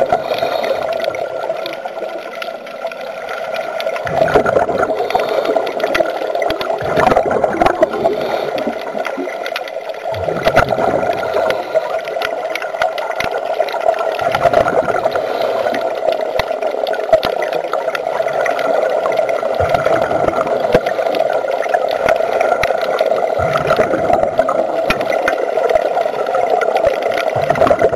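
Scuba diver breathing through a regulator underwater: bursts of exhaled bubbles about every three seconds over a steady hum.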